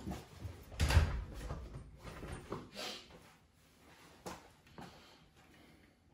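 Tools and parts being handled on a workbench: a loud thump about a second in, then a string of lighter knocks and clicks.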